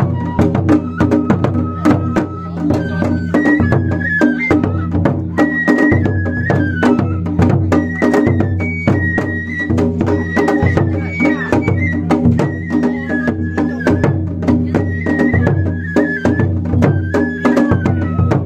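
Japanese festival float music (matsuri bayashi): a large taiko barrel drum on the float beaten with sticks in a quick, steady run of sharp strokes, with a high flute melody of held, wavering notes above it.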